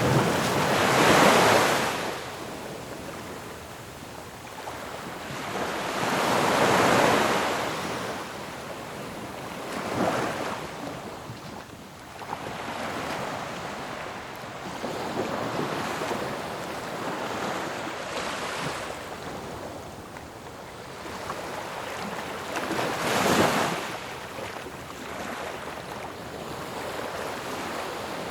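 Ocean waves washing onto a shore: a steady hiss of surf that swells and fades, with waves breaking loudest about a second in, around seven seconds in, and again near the end.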